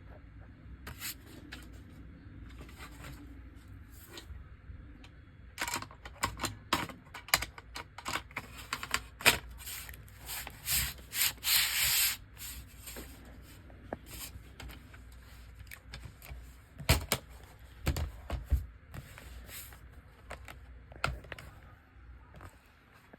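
Hands working on a laptop: plastic clicks, taps and rubbing, busiest from about six to twelve seconds in, where a short scraping rush sounds, then a few dull knocks.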